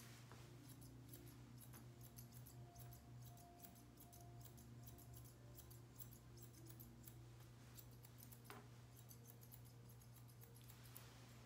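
Grooming scissors snipping through a poodle puppy's coat: faint, quick, irregular clicks of the blades, over a steady low hum.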